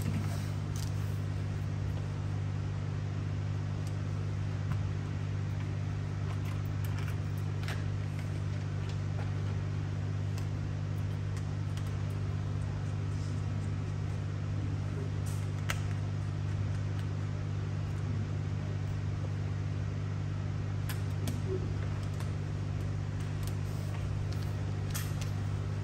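A steady low hum, with a few faint clicks and taps scattered through it.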